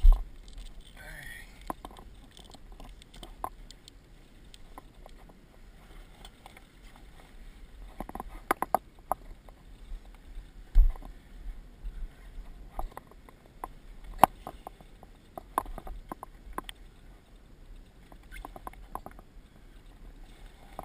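Sail cloth and lines being handled on a sailboat: scattered clicks, knocks and rustling as the flaked sail is wrapped, with two heavy low thumps, one at the start and one about halfway through.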